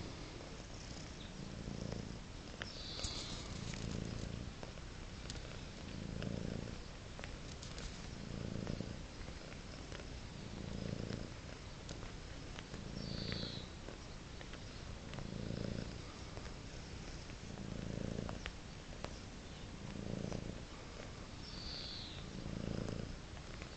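Domestic cat purring steadily, the purr swelling and fading with each breath about every two seconds.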